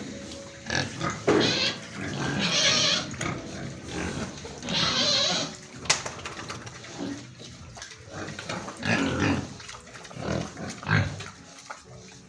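Pigs grunting, with louder noisy calls in short irregular bursts and a sharp click about six seconds in.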